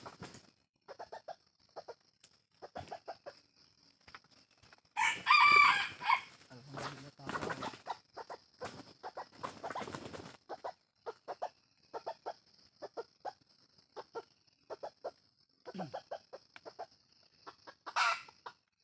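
Red junglefowl roosters clucking in many short calls, with a loud call about a second long around five seconds in and a shorter loud call near the end, over a steady high-pitched buzz.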